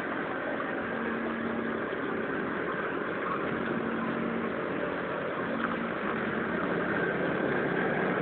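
A vehicle engine running steadily at idle, with a low hum that comes and goes and grows slightly louder toward the end.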